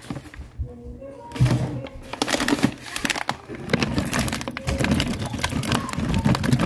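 Plastic pasta bag crinkling and crackling as cheese tortellini is shaken out of it into a slow cooker, the crackle growing dense about a second and a half in.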